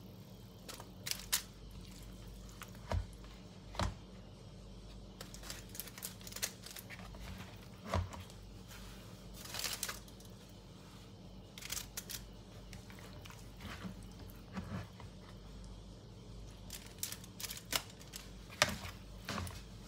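Plastic spoon scooping a thick fish and coconut-milk curry mixture and scraping and tapping it into aluminium-foil cups, with the foil crinkling: irregular light clicks and scrapes over a faint steady low hum.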